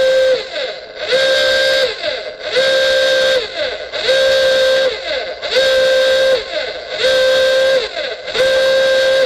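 Warning siren sounding a pulsed alert: about seven short blasts of one steady tone, roughly one and a half seconds apart. Each blast slides quickly up to pitch and drops off at the end.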